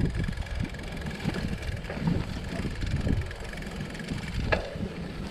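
Mountain bike rolling over a rough dirt trail: an uneven low rumble of tyres and rattling bike, with wind on the microphone and one sharp knock about four and a half seconds in.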